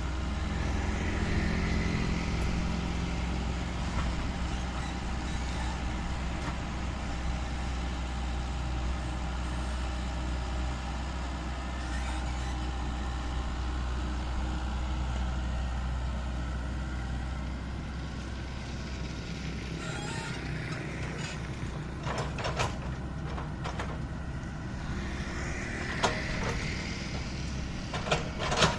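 Heavy diesel engine running steadily with a low drone. In the last several seconds the drone eases and a run of rapid clicks and knocks sets in.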